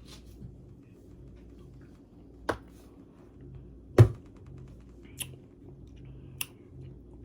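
A few short, sharp taps over a faint steady hum. The loudest comes about four seconds in, with a smaller one before it and two fainter ones after.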